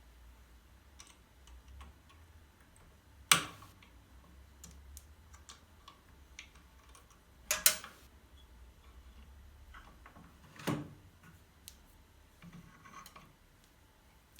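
Scattered light clicks and knocks, as of small wooden pieces and tools being handled, over a faint low hum. Louder knocks come about three seconds in, as a quick double near the middle, and about ten seconds in.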